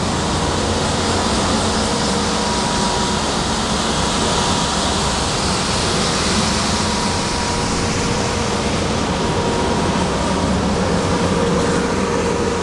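A 70-kilo US Roaster Corp Revelation coffee roaster running with a roast under way: a loud, steady rush of machinery with a faint steady whine and a low hum through it.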